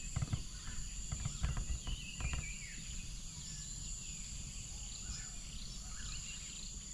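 Early-morning forest ambience: birds chirping here and there over a steady high-pitched insect drone. A few soft knocks in the first couple of seconds.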